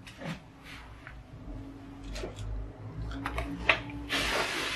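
Handling noises as a person reaches down and picks something up: scattered light knocks and clicks, with a short rustling about four seconds in.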